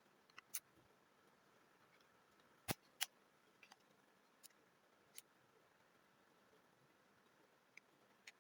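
Near silence broken by scattered small, sharp clicks of small parts and tools being handled during AirPods reassembly, with two louder clicks close together about three seconds in.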